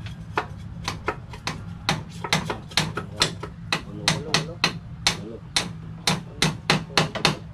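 Hammer striking nails through split-bamboo slats into a wooden bench frame: a quick, uneven run of sharp blows, roughly three a second, some landing in close pairs.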